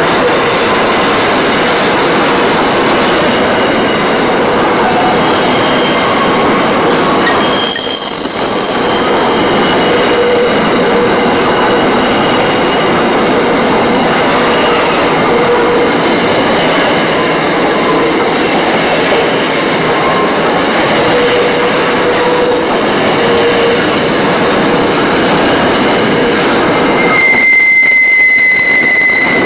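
Container flat wagons of a long freight train rolling past at close range, a steady heavy roar of wheels on rail. High thin wheel squeals come and go over it, with a sharper squeal near the end.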